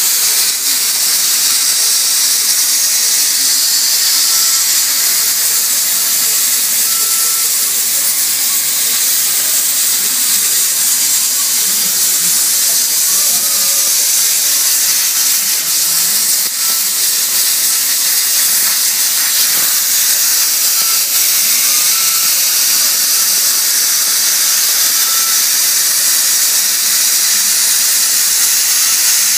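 CNC plasma cutter torch cutting 3 mm steel plate: the arc gives a steady, loud hiss that holds unbroken while the torch traces the cut.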